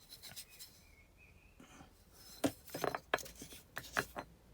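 Old glass bottles clinking and knocking as they are picked up and handled. There are a few light taps at first, then a run of sharper clinks in the second half.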